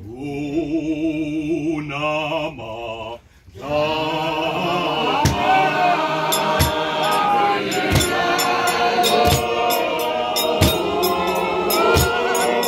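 Music with singing voices: a held, wavering vocal line, then a brief drop-out about three seconds in. After that comes fuller music with a low thump about every second and a half.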